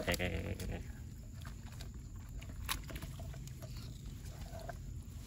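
A brief voice-like call at the start, then faint scattered rustles and ticks of a wire-mesh fish trap being handled and set down on leaf litter, over a low steady hum.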